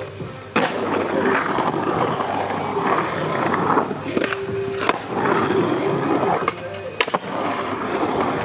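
Skateboard wheels rolling and carving on a concrete bowl, with a hard landing about half a second in and a couple of sharp clacks of the board later on.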